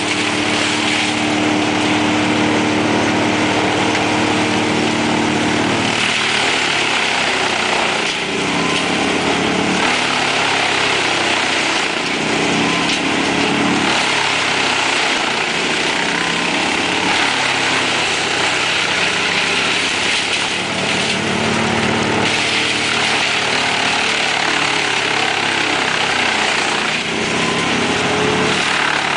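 Large truck-mounted wood chipper and its grapple loader running, engines droning steadily while branches are fed into the feed roller and chipped. The chipping noise swells twice, about six seconds in and again past twenty seconds.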